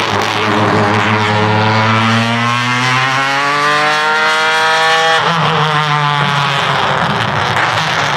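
Alfa Romeo 155 V6 Ti DTM race car's V6 at full throttle, its pitch climbing steadily for about five seconds. About five seconds in it drops sharply as the sequential gearbox shifts up, and the engine pulls on in the next gear.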